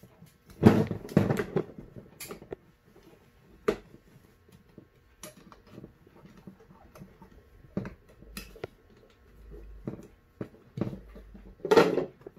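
Scattered clicks and knocks of a long screwdriver working on a Holley double-pumper carburetor as the fuel-bowl screws are run in, with a louder cluster of knocks about a second in and another loud knock near the end.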